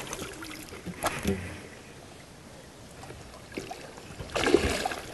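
Hooked tambacu, a tambaqui–pacu hybrid fish, thrashing at the water surface: a few short splashes about a second in and a louder, longer splash near the end.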